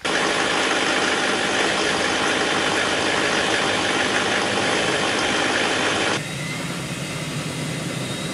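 LLY Duramax 6.6 L V8 turbodiesel idling steadily. About six seconds in, the sound cuts abruptly to a slightly quieter, lower-toned run of the same kind.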